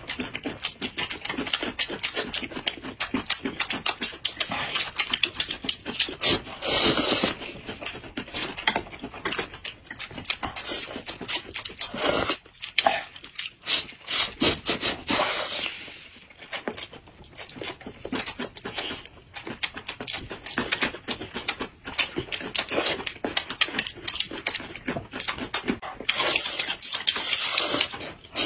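Close-up mouth sounds of noodles being eaten: wet chewing and smacking throughout, with several long, loud slurps as mouthfuls of noodles are sucked in.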